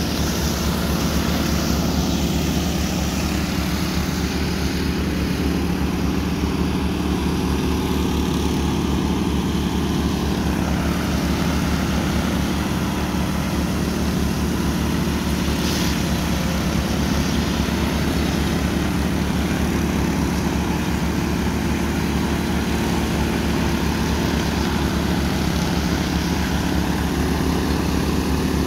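Several walk-behind power trowels running together on a fresh concrete slab, their small engines droning steadily as the rotating blades float the surface.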